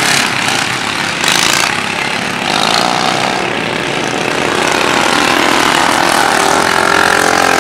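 Several racing lawn tractor engines running hard at high revs on a dirt track, a steady overlapping engine drone, with a short rush of noise a little over a second in.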